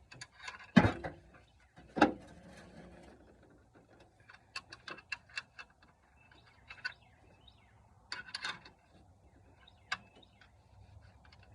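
Hand tools clanking and clicking against metal: two loud knocks early, then a run of quick light ticks, a short rattle and another knock.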